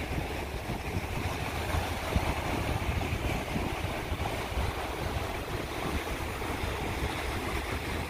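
Wind buffeting the microphone in uneven gusts, with the steady wash of ocean surf underneath.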